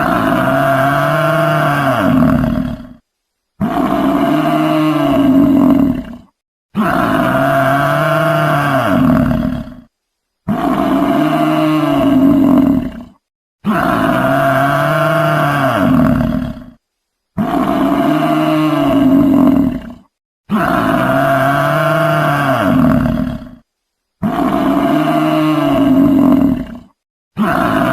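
A wild animal roaring: the same call of about three seconds repeats about eight times, each one separated by a short silent gap, like a looped recording.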